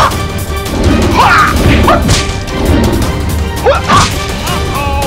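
Background music with a steady bass line, overlaid with a rapid string of crash and hit sound effects and short gliding squeals, the loudest hits at the very start and about four seconds in.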